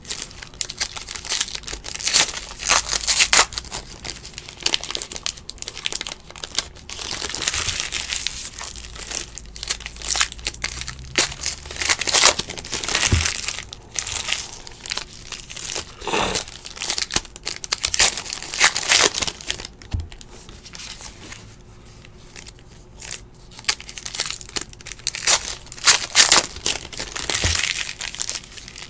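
Plastic wrappers of 2017 Panini Classics football trading-card packs crinkling and tearing as they are ripped open by hand, with cards handled and squared on a stack in between. Irregular crackles and sharp rustles throughout, a little quieter about twenty-two seconds in.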